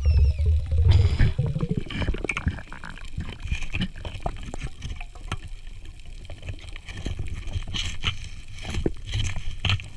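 Underwater sound picked up by the diver's camera: a low, muffled rush of water movement, loudest in the first two seconds, with scattered clicks and crackles throughout.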